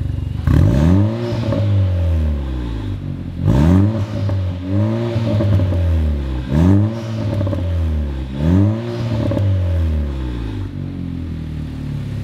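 A Vanderhall's 1.5-litre turbocharged four-cylinder, heard at the exhaust tip through a stainless performance downpipe on stock tune and factory exhaust, is revved five times from idle, the pitch rising and falling each time, then settles back to idle near the end.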